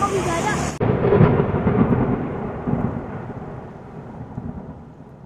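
A deep rumble starts abruptly about a second in and fades steadily away over the next few seconds.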